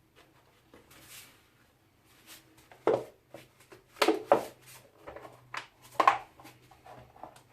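Clicks and knocks of a tool and plastic parts being handled while an electric strimmer is taken apart, with a few sharper knocks about three, four and six seconds in.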